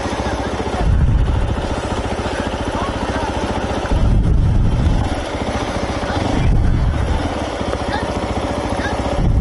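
Motorcycle engine running at low revs as the bike creeps along at walking pace. There are short, louder low surges about one, four and six and a half seconds in.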